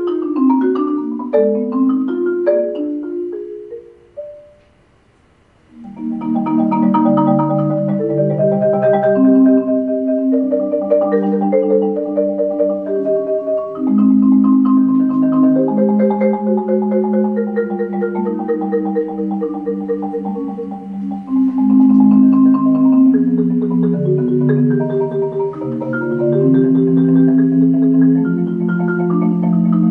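Solo concert marimba playing a slow melody with rolled, sustained chords. A falling run of notes fades out about four seconds in, and after a short pause the playing resumes with low rolled chords under the tune.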